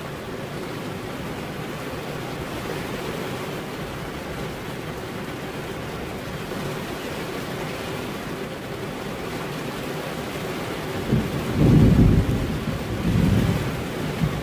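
Steady rain falling, with a low rumble of thunder about eleven seconds in that swells twice and then fades.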